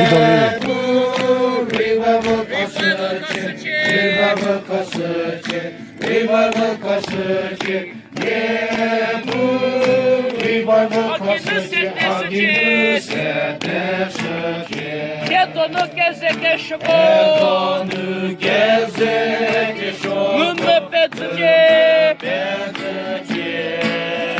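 A group of voices singing a revival chorus together, with a steady, sharp beat running under the singing.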